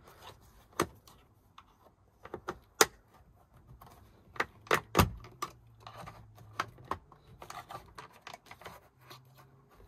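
VW Transporter T5 plastic dashboard trim panel being prised off with a plastic trim tool: a series of sharp plastic clicks and knocks as the clips give, the loudest a little under three seconds in and about five seconds in.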